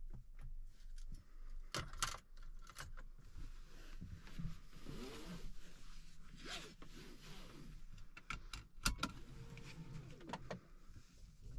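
Quiet handling noises inside a car cabin: a few sharp clicks around two seconds in and again near the end, with light scraping and rubbing in the middle.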